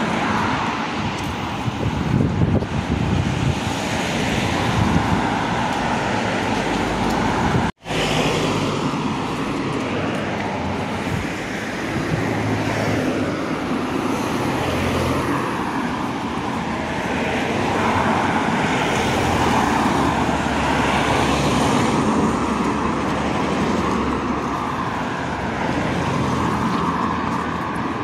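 Street traffic: cars passing one after another with a steady hum of engines and tyres. The sound cuts out for an instant about eight seconds in.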